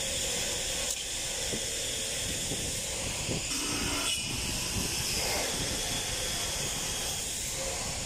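Steady loud hiss of ship engine-room background noise from ventilation and machinery, with a few faint knocks and a brief squeak as a fuel valve body is handled and wiped in a copper-jawed vise.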